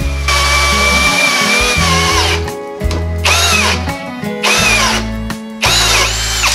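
A cordless hammer drill turns a 5-inch hole saw through a wooden board. Its motor whine holds steady, then winds down about two seconds in, and twice more spins up and slows again. Background music with a heavy bass plays under it.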